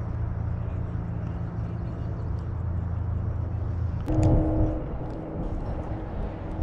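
A motor running steadily with a low hum. About four seconds in, a brief louder sound with a tone and a few sharp clicks cuts across it.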